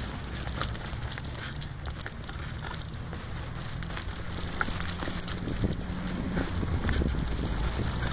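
Bicycle rolling over grass and dry leaf litter, with a steady low wind rumble on the microphone and scattered crackling clicks, growing a little louder near the end.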